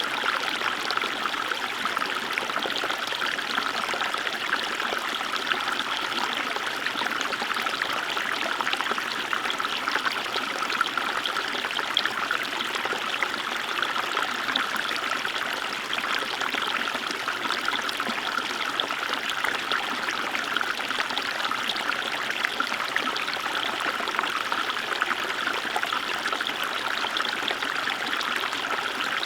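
Small river flowing over stones, water rippling and trickling steadily with a dense patter of small splashes.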